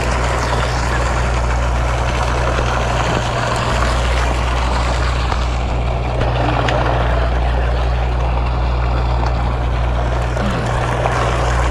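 Sportfishing boat's engine droning steadily, a low hum under an even rushing noise of wind and water.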